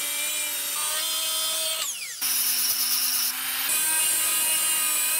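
Angle grinder with a cut-off wheel cutting through steel held in a bench vise: a steady high whine with a hiss of grinding. About two seconds in, the pitch falls briefly before the cutting whine resumes.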